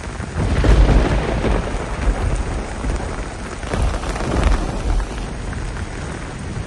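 Rain falling steadily, with heavy, uneven low rumbling underneath.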